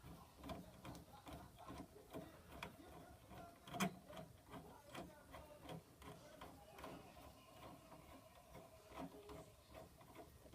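Faint clicks and scraping of a Phillips screwdriver turning a door handle's mounting screws, with one sharper click about four seconds in.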